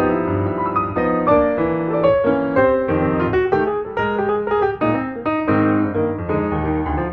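Background piano music: a melody of notes played over held lower chords, with no machine sounds standing out.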